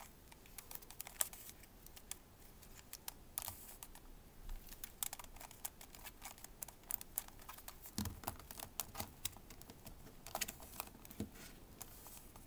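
Plastic pieces of a Redi Barrel twisty puzzle clicking as its corners are turned by hand: quick, irregular clicks, with a few louder clacks about eight and ten seconds in.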